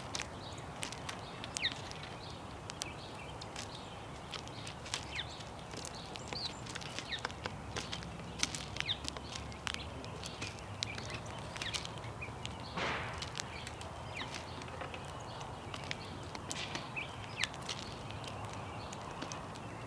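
Small birds feeding: scattered sharp clicks and taps of beaks pecking at seed, with a few short chirps and a brief rustle about thirteen seconds in.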